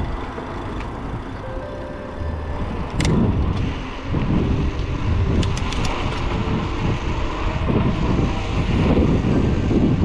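Road noise on a bicycle ride: an uneven low rumble with wind on the microphone, louder from about three seconds in, with a few sharp clicks.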